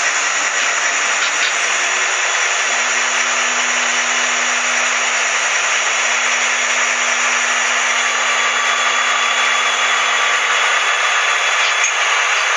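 HO-scale model diesel locomotive running along the track: a steady whir from its small electric motor and its wheels on the rails. A low hum joins in a few seconds in and stops near the end.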